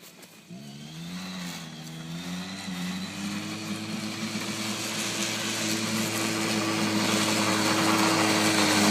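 Arctic Cat Kitty Cat youth snowmobile's small engine revving up about half a second in, wavering, then holding a steady pitch and growing steadily louder as the sled gets under way.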